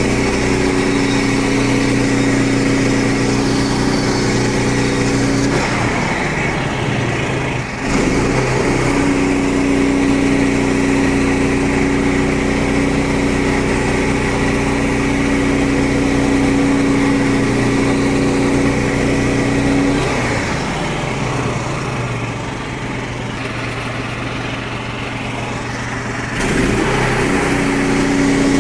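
Small gasoline engine of a portable bandsaw sawmill running steadily. Its pitch drops twice, about six seconds in and about twenty seconds in, and comes back up to its steady speed a couple of seconds and about six seconds later.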